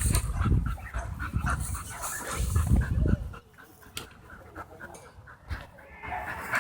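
A dog panting rapidly, about four breaths a second, stopping about halfway through.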